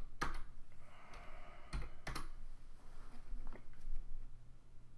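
A handful of separate keystrokes on a computer keyboard, irregularly spaced sharp clicks as a short command is typed and confirmed.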